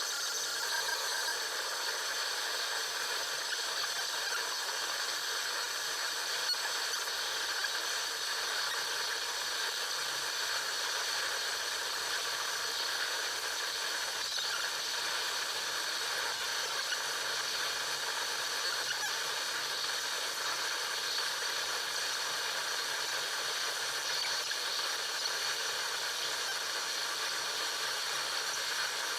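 Google Chrome's program file played as raw audio through Binary Waterfall: a steady, harsh digital hiss with faint steady tones threaded through it, mostly in the upper-middle and high range.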